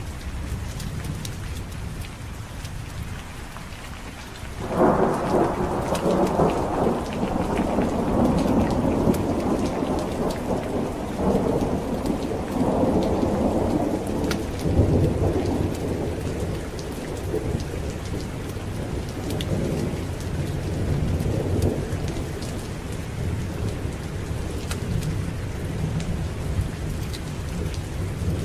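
Steady heavy rain, with a thunderclap breaking suddenly about five seconds in and rolling on as a long rumble that slowly fades back under the rain.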